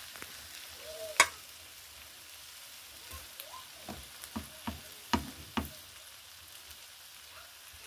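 Chicken drumsticks, onions and green peppers sizzling faintly in oil in a frying pan. Several sharp knocks and scrapes of a wooden spatula against the pan come as the drumsticks are lifted out, the loudest about a second in.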